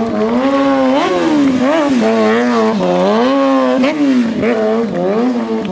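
Sport motorcycle engine held at high revs, revving up and down over and over as the rider works the throttle through a stunt, the pitch rising and falling about once a second.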